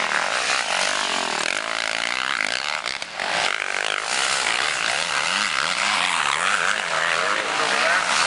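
Motocross bike engines revving hard through a sand corner, the engine note rising and falling as the riders open and close the throttle, with a short drop in loudness about three seconds in.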